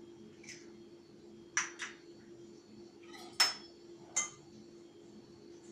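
A utensil clinking against a glass mixing bowl as cookie dough is mixed, about five short, sharp clinks at uneven intervals, the loudest about three and a half seconds in. A faint steady hum runs underneath.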